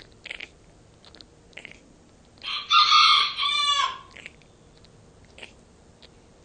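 A hen with breathing problems, held close, making short rasping breath sounds about once every second and a bit. About two and a half seconds in she gives one loud crow-like call, about a second and a half long, that starts raspy and ends in a quick stuttering trail.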